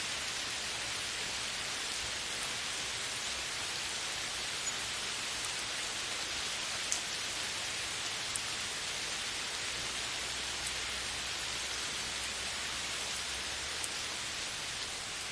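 Steady heavy rain falling on a forest canopy: a dense hiss with occasional sharper drop ticks.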